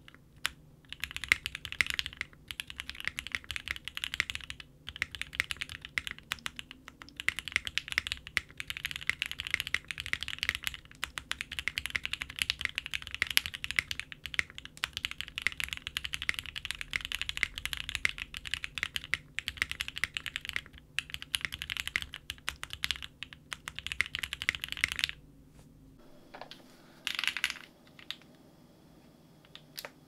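Typing on a Windx65 mechanical keyboard with lubed and filmed Gateron CJ linear switches, a POM plate and full case and PCB foam: a fast, steady stream of clacky keystrokes that stops about 25 seconds in, followed by a few single key presses.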